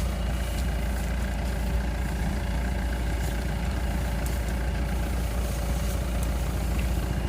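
Combine harvester engine running steadily, a low, even drone.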